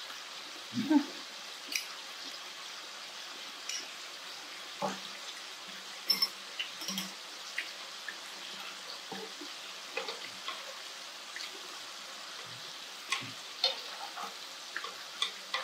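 Duck slices sizzling steadily in a frying pan still on the heat, with scattered light clicks and knocks of chopsticks and a spoon against bowls and dishes.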